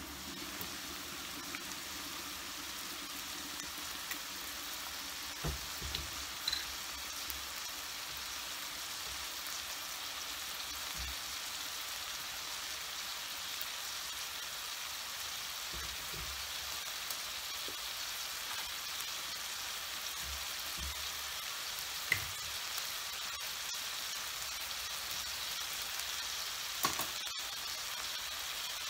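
Prawns, chicken and onion sizzling in a frying pan with soy sauce, a steady hiss. A few short clinks come from a metal spoon knocking the pan as the food is stirred.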